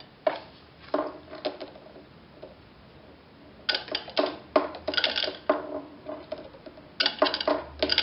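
Light metallic clinks and rattles with a brief ring: a few at first, then clusters about four seconds in and again near the end. They come from a hard-drive cover being hung on a hook and then lifted and jostled by a hard drive's head actuator as its coil is switched on from a battery.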